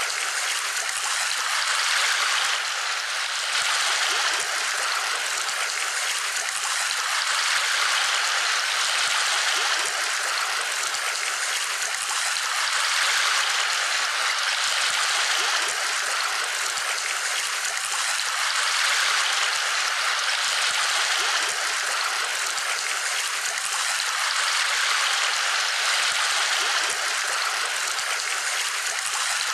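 Steady rush of flowing water, like a stream, swelling gently every few seconds.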